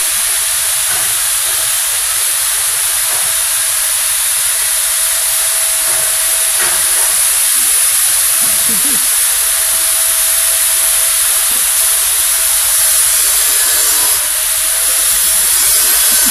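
A loud, steady hiss, with a faint steady tone underneath.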